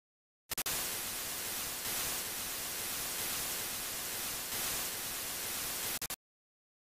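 Hiss of a TV-static sound effect. It starts about half a second in with a couple of quick stutters, runs steadily, then stutters and cuts off suddenly about a second before the end.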